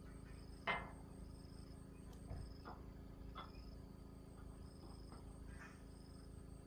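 An insect chirping in a steady repeating pulse, a little more than once a second, over a low hum. A few short knocks or clicks come through, the loudest about a second in.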